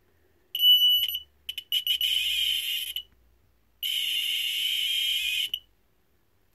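Piezo buzzer on a Velleman MK120 infrared light-barrier receiver board sounding its alarm, the sign that the receiver has lost the infrared beam. It gives a short, clean high beep about half a second in, then two longer, harsher buzzing bursts, the last ending about a second before the end.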